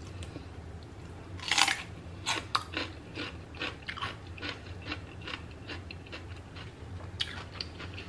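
A bite into a raw celery stick gives one loud, crisp crunch about a second and a half in. It is followed by crunchy chewing of the celery, about two to three crunches a second, that thins out toward the end.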